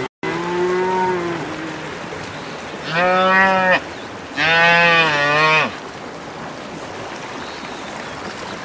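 A cow mooing three times: a shorter, softer moo at the start, then two long, loud moos a second or two apart, over steady background noise.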